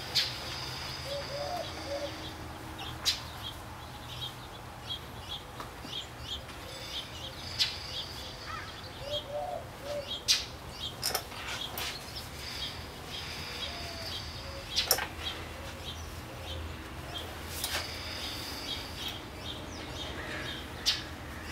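Birds chirping repeatedly in the background, with a few short, sharp clicks and taps as an alloy wheel is wiped dry with a microfiber towel.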